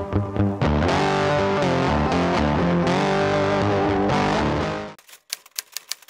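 Background music led by distorted electric guitar, which cuts off about five seconds in and gives way to a quick run of typewriter key clicks as a title types on.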